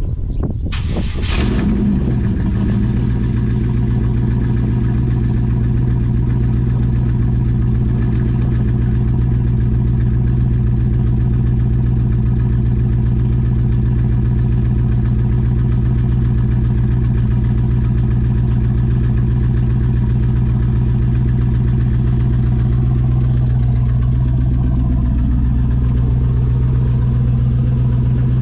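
1994 Pontiac Firebird Trans Am's LT1 V8 firing up on its first start-up, with a brief rev about a second in as it catches, then idling steadily through the exhaust.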